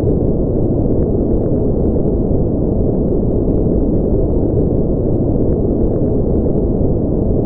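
A steady, deep rushing noise that holds even and unbroken, with no rhythm or pitch.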